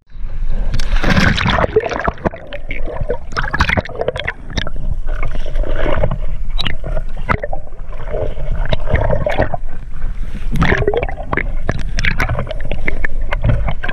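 Water gurgling and bubbling against a submerged action camera, with frequent clicks and knocks.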